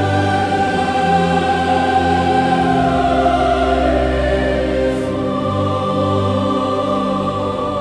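Slow orchestral music with wordless female choir-style vocals over sustained strings and a low bass drone, the chord shifting about five seconds in.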